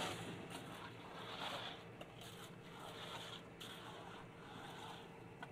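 Faint wet scraping and squishing of fresh concrete coming down the chute into the wall form, with a low steady hum behind it.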